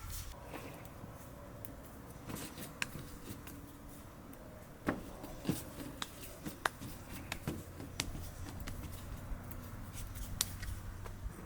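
Irregular light clicks and taps, a dozen or so scattered through, over a low steady hum.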